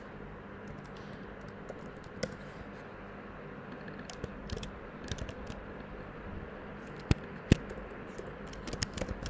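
Typing on a computer keyboard: scattered keystrokes, with two sharper, louder clicks about seven seconds in and a quick run of keystrokes near the end.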